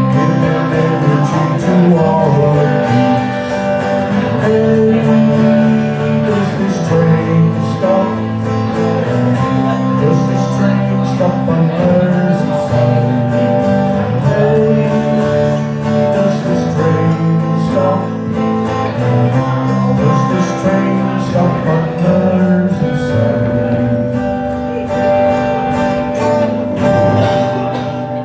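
Live acoustic folk music: strummed acoustic guitar with other instruments playing a passage without clear words, dying away at the very end.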